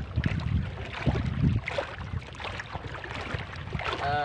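Gusty wind rumbling on the microphone over sea water sloshing against a small outrigger boat on choppy water.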